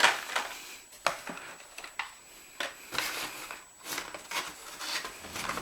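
Carded diecast toy cars being handled: plastic blister packs crinkling, with several sharp clicks and taps.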